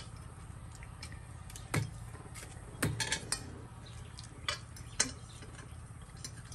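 Forks clinking against a ceramic plate as noodles are picked up: a handful of separate light clinks, the sharpest about five seconds in, over a faint steady low hum.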